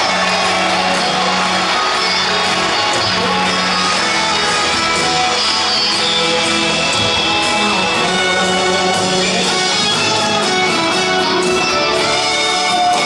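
Live band music heard from high up in an arena: a slow rock ballad with guitar, sounding distant and reverberant.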